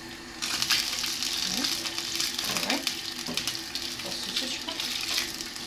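Hot dog sausages sizzling in hot fat in a frying pan; the sizzle starts suddenly about half a second in and then runs steadily.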